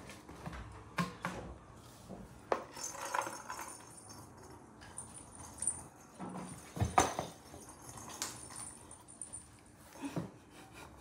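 Small bells on a cat's feather toy jingling, with scattered taps, knocks and rustles of a cardboard box as the toy and box flap are moved about; the sharpest knock comes about seven seconds in.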